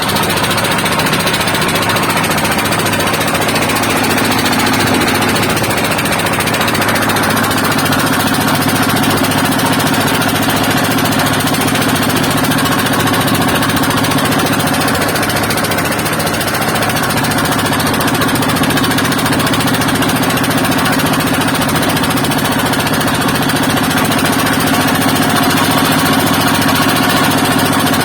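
Small boat's engine running steadily and loudly.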